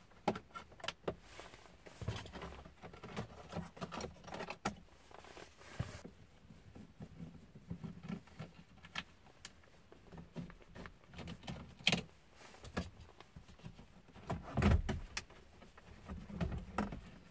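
Factory car radio being worked loose and slid out of its dashboard slot with radio release keys: scattered small clicks, rattles and scrapes of metal on plastic, with a louder knock about fifteen seconds in.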